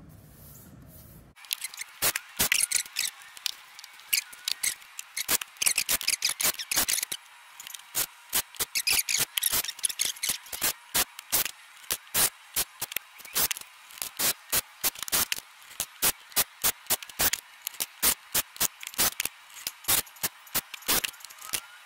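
Small cordless drill and hand tools drilling pilot holes and driving small square-drive wood screws through an aluminum piano hinge into a walnut frame: a quick, irregular run of short, sharp clicks and rasps, thin and high with no low end, starting about a second in.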